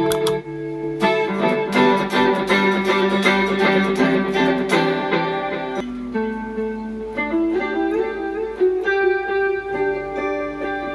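Electric guitar played through a Cuvave Cube Baby: a quick run of picked notes for the first five seconds or so, then slower, ringing single notes.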